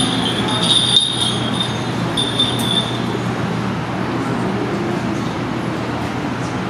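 Steady ambience of a large hall full of people, with a low hum from the sound system. A high, thin whistling tone comes and goes over the first three seconds, then stops.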